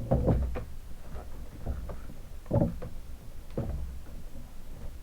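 Handling noises from a doll's box being moved and opened: a few irregular knocks and rustles, the loudest at the start and about two and a half seconds in.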